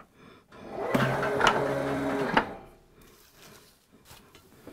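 Electric guillotine paper cutter making a cut through the head of a book block. Its drive hums steadily for about a second and a half, with clicks as it starts, and stops with a sharp click.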